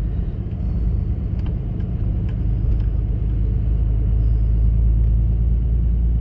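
Truck driving, heard from inside the cab: a steady low rumble of engine and road noise that grows a little louder after about three seconds.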